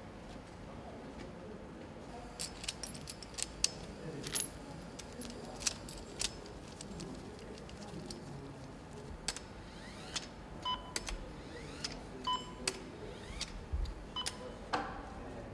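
Small steel engine parts clicking and clinking against the aluminium cylinder head of a Nissan GT-R engine as gloved hands fit the valve lifter buckets and cam-cap bolts. The clicks come at irregular intervals, a few with a short metallic ring.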